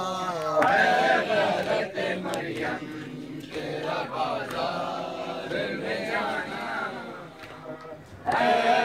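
Crowd of men chanting together in a matam mourning lament for Hussain, many voices on a rising and falling tune. The chant comes in loud about half a second in, eases off through the middle and surges again near the end.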